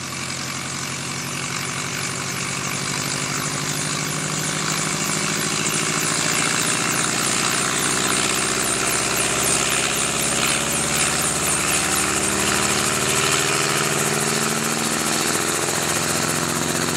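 Enstrom helicopter running on the ground with its main rotor turning: a steady engine-and-rotor drone that grows gradually louder over the first several seconds, then holds.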